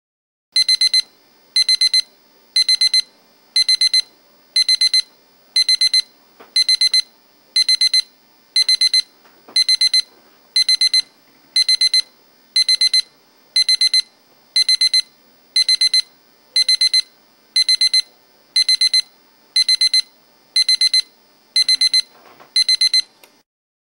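Electronic alarm clock beeping: a loud high-pitched burst of rapid beeps about once a second, repeating about twenty times until it is switched off near the end, with a faint rustle of bedding just before it stops.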